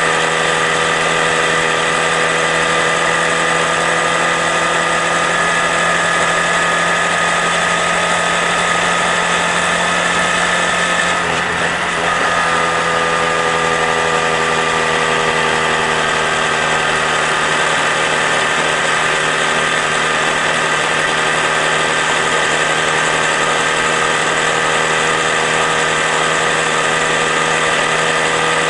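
Honda Grom's 125 cc single-cylinder engine running at a steady speed under way. About twelve seconds in, the engine note briefly drops and then settles at a slightly different pitch.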